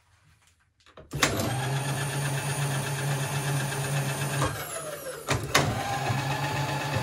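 Vevor X-axis power feed motor, run on 220 volts, starting about a second in and driving the mill table steadily at full speed. Past the middle it winds down with a falling pitch, two sharp clicks follow, and it runs up again.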